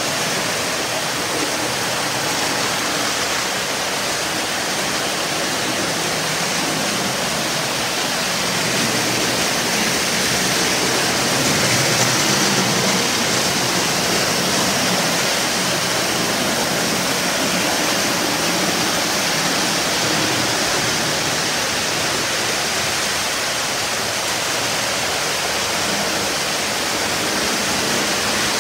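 Several postwar Lionel O-gauge trains running at once on three-rail track: a steady, dense noise of metal wheels on the rails and of the locomotive motors, swelling slightly about twelve seconds in.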